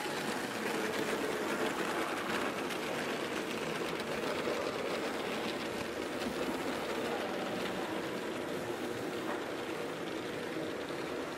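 Tinplate toy trains running on a metal-track layout: a steady whirr of small locomotive motors with the rattle of wheels on tin rails.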